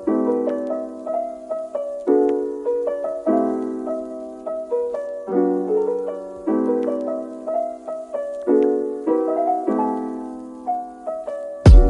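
Background music: a gentle piano piece with chords struck about once a second. Near the end a loud drum hit with deep bass cuts in as a different track begins.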